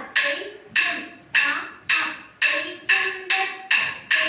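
A steady time-keeping beat for dance practice: sharp percussive strikes, about two a second, each ringing briefly before the next.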